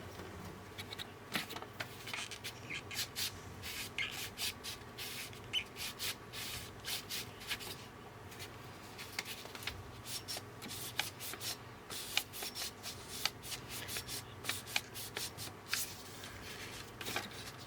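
Hands handling a synthesizer circuit card: irregular rubbing, scraping and small clicks throughout.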